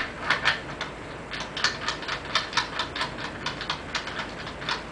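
A sharp click, then quick runs of metallic clicks and ticks as a spigot adapter is fitted and locked into the socket of a die-cast aluminium multi-way grip clamp.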